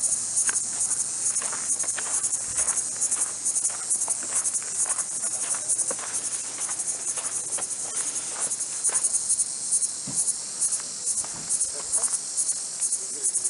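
A chorus of insects shrilling steadily, high-pitched and pulsing about three times a second, with scattered faint clicks underneath.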